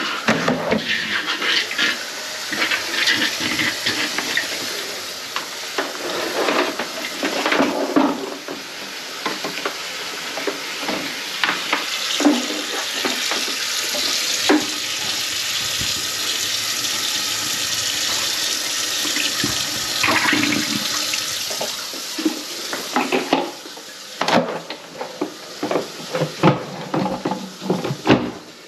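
Water running and splashing in a kitchen sink whose drain line is clogged with grease, with knocks and clatter throughout. Near the end the rush of water drops away and only scattered knocks remain.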